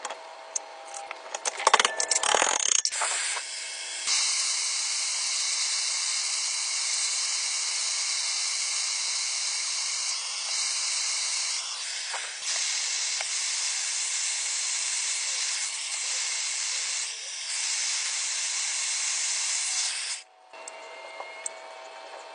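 Gas soldering torch burning with a steady hiss while copper water-heater piping is sweated, starting a few seconds in and cut off abruptly near the end. Light clatter of tools and fittings comes before the torch.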